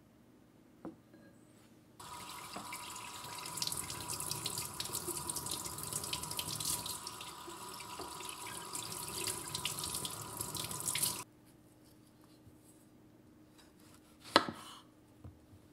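Kitchen faucet running into a sink as strawberries are rinsed: a steady splashing flow for about nine seconds that cuts off suddenly. Near the end comes a single sharp knock of a knife blade striking a wooden cutting board as a strawberry is cut.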